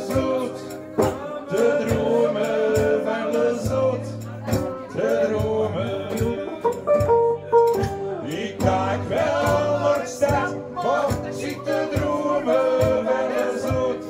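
Live acoustic chanson: two acoustic guitars, one an archtop, strummed together under a man's singing voice.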